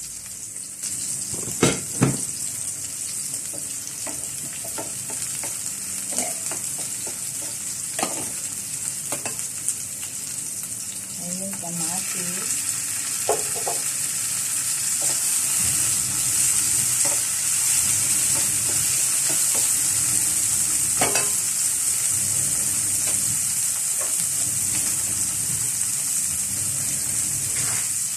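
Chopped onions sizzling in hot oil in a frying pan, a steady hiss broken by a few sharp knocks against the pan, the two loudest about two seconds in. About halfway through the sizzle grows fuller and louder as sliced tomatoes go into the pan.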